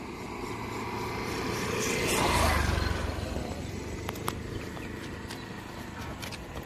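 A motor vehicle passing by on the road, its engine rumble and tyre noise swelling to a peak about two and a half seconds in and then fading away.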